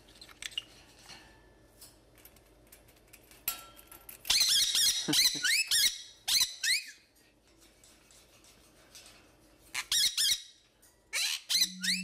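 Pet conure parrot squawking in its cage: harsh, rising calls in a burst from about four to seven seconds in and again near the end, with scattered small clicks between.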